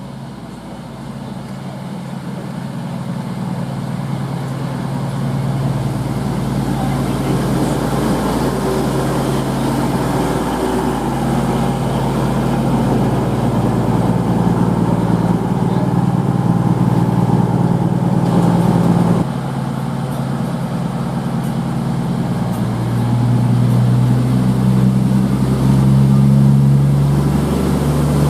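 A train approaching and running through the station, getting louder over the first few seconds and then holding steady, with a low motor hum that shifts in pitch a couple of times.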